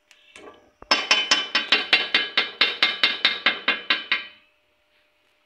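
A short burst of music: rapid, evenly repeated percussive notes, about five a second, starting about a second in and stopping after about three seconds.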